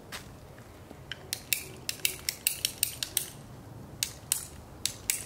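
Ratcheting PVC pipe cutter clicking as its handle is squeezed through 3/4-inch PVC pipe: a run of sharp clicks, about four or five a second, starting about a second in, with a short pause near the end.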